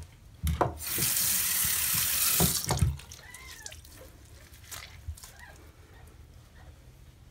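Bathroom sink tap running for about two seconds, water splashing into the basin, with a knock as it is turned on and another as it is shut off.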